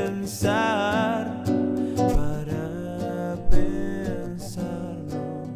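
A man singing a slow song with his own acoustic guitar accompaniment. About half a second in he holds a note with vibrato.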